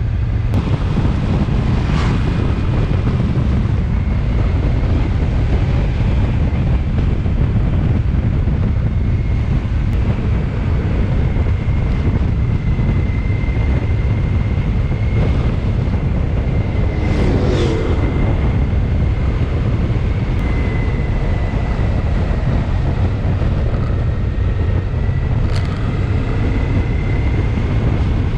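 Steady wind rush on the microphone from riding a Honda ST1300 Pan European motorcycle, with a faint thin whine throughout. A few brief knocks come through: one about two seconds in, one past the middle and one near the end.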